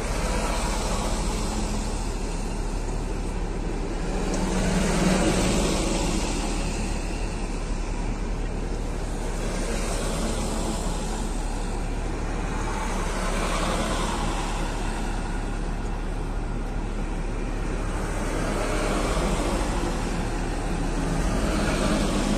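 A column of military trucks passing one after another on a wet road: steady engine noise with tyre hiss that swells and fades as each vehicle goes by, every few seconds.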